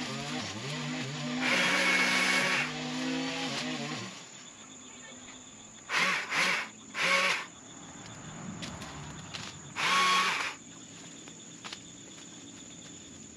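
Small gas engine of a handheld power tool cutting back overgrown shrubs. It runs with a wavering pitch and one loud rev in the first few seconds, then drops to a low idle. It is revved in short bursts: three close together about halfway through, and one more a few seconds later.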